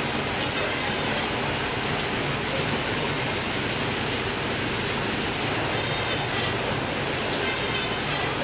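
Steady rushing noise aboard a fishing vessel, like water pouring or spraying, with a low steady hum underneath.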